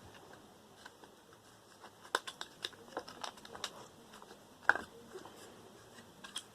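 Scattered small plastic clicks and taps as the buttons of a dismantled Bluetooth speaker are pushed in through its casing, the loudest a single knock near five seconds in.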